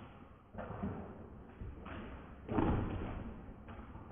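A few dull thumps, the loudest about two and a half seconds in.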